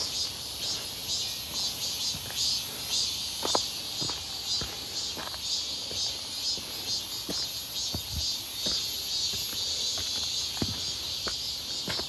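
Cicadas singing in a dense, high-pitched chorus that pulses steadily, with scattered footsteps on a dirt and rock trail.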